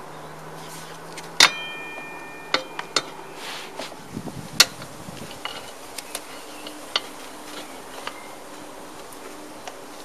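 Metal parts of a scooter's rear wheel assembly clinking and knocking as the wheel, spacers and loose brake caliper bracket are worked into place. A sharp metallic clink that rings briefly comes about one and a half seconds in, and another sharp knock comes around four and a half seconds, with lighter ticks between.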